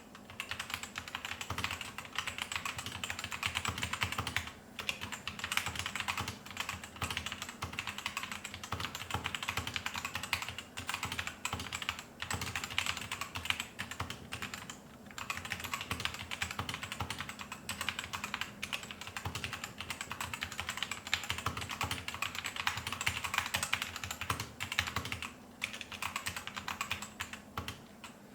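Typing sound test on a Tecware Phantom tenkeyless mechanical keyboard with Outemu red switches and PBT double-shot pudding keycaps: steady fast key clacking, pausing briefly three times.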